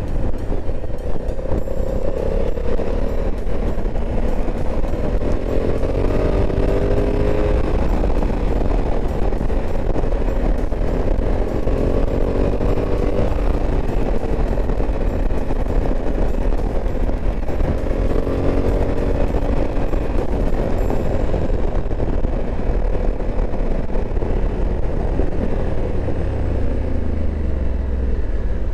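Honda Africa Twin 1100's parallel-twin engine pulling along a country lane, with heavy wind rush on the microphone. The engine note rises in pitch in three stretches as the bike accelerates, and the wind noise eases after about twenty seconds.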